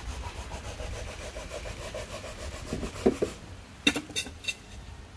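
Coconut being grated on a grater: quick, even rasping strokes that stop about three seconds in, followed by a couple of knocks and three sharp clicks.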